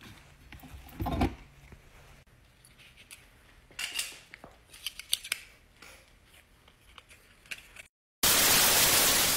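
Quiet scattered clicks and snips of hand tools on a metal workbench. About eight seconds in comes a loud burst of hiss lasting about a second and a half, which ends in a fast falling tone.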